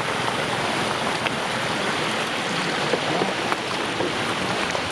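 Steady rush of flowing water, an even noise with a few faint clicks over it.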